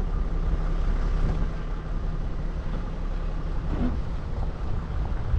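A 4x4 vehicle's engine running steadily with a low drone, with wind noise on the microphone.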